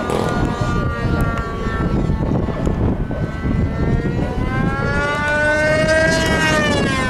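Radio-controlled Super Sport 40S model airplane engine buzzing in flight. Its pitch climbs from about four seconds in and falls away near the end. Heavy wind noise on the microphone runs underneath.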